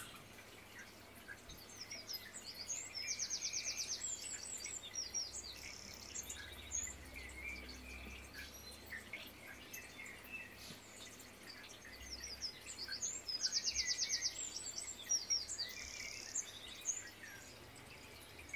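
Birdsong: high chirps and a rapid trill of evenly spaced notes, with the same run of calls coming back about ten seconds later. A single sharp click right at the start.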